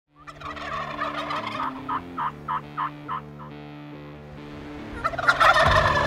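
Wild turkey gobblers gobbling: a long rattling gobble that breaks into a string of about six quick separate notes, then another loud gobble near the end.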